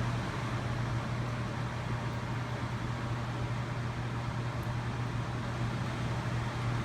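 Honeywell CHS122AE evaporative air cooler running: a steady rush of air from the fan over a strong, constant low hum. It is the loud noise the owner reports from the first day of use, which he ties to the oscillate function and the water pump.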